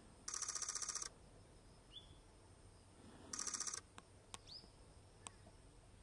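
Iwasaki grass cicada buzzing in two short, fast-pulsed bursts, the first near the start and a shorter one past the middle, with a few sharp camera shutter clicks and two brief bird chirps in between.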